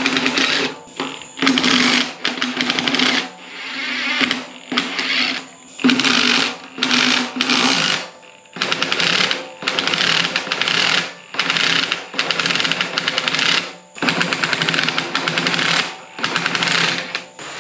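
Cordless impact wrench hammering lug nuts loose on a wagon wheel, run in about a dozen short bursts of a second or two each with brief pauses between.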